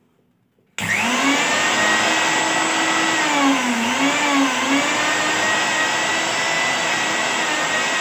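Snapple mixer grinder's universal motor switching on suddenly about a second in and running at high speed with a loud whine, unloaded with no jar fitted; its pitch dips and wobbles briefly in the middle. The motor runs again now that the faulty main lead wire has been replaced.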